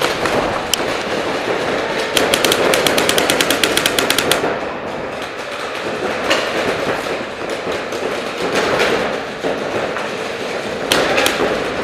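Paintball markers firing in an indoor hall: a few quick shots as it opens, a long rapid string of about nine shots a second from about two seconds in to just past four, then scattered single shots, two close together near the end.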